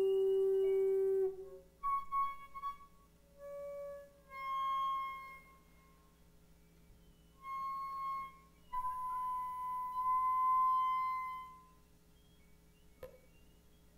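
Ultrasonic acoustic-feedback instruments, their feedback tones shifted down into the hearing range and played through loudspeakers: clear held tones that come and go, one low tone first, then several higher ones, each lasting from under a second to a few seconds with short silences between. A single click near the end.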